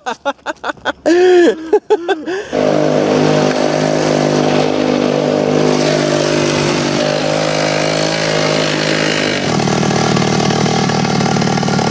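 Two-stroke chainsaw engine driving a homemade drift trike: it runs in short choppy bursts with a couple of quick revs at first, then settles into steady running from about two and a half seconds in. Its note shifts about a second and a half before the end.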